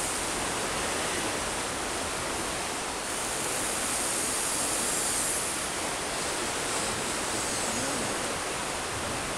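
Steady rushing of a nearby river.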